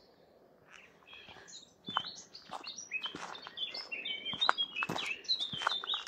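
A songbird singing a loud, fast run of varied high notes and trills, starting about a second in.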